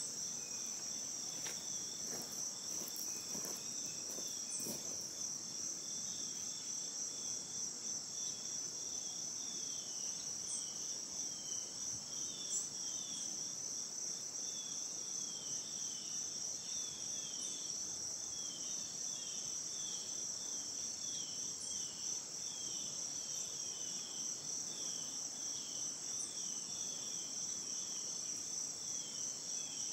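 Insects calling in a steady high trill, with a second, lower series of short falling chirps repeating from about a third of the way in.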